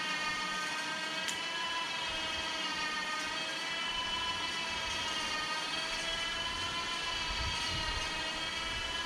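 A motor running steadily, a droning whine with many overtones whose pitch wavers slowly up and down.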